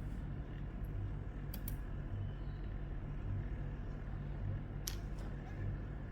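Steady low mechanical hum that swells about once a second, with a few faint clicks.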